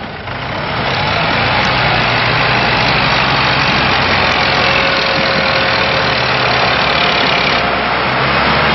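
Diesel farm tractor engines running hard, pulling against each other in a tractor tug-of-war. The engine noise swells over the first second, then holds loud and steady.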